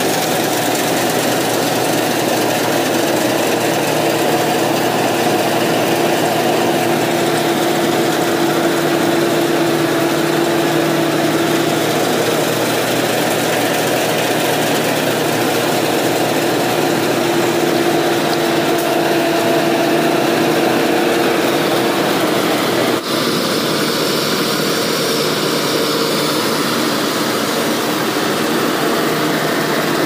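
New Holland combine harvester running steadily while cutting lodged rice: a continuous engine and machinery drone with a few steady whining tones. It dips briefly about three-quarters of the way through.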